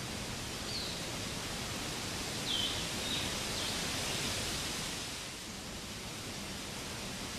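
Steady outdoor hiss with a few short, high, falling bird chirps: one about a second in, then a louder one and two quieter ones around the middle.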